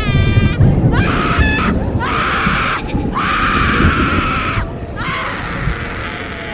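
Screaming: a couple of short sliding cries, then three long, hoarse screams one after another, the last fading somewhat. A low rumbling drone runs underneath.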